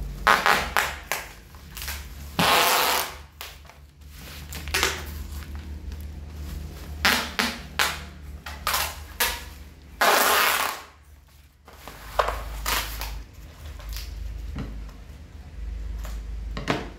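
Brown packing tape pulled off the roll in several noisy strips, two of them long pulls of about a second, and pressed onto a parcel wrapped in a black plastic bag, with the plastic crinkling between pulls. A steady low hum runs underneath.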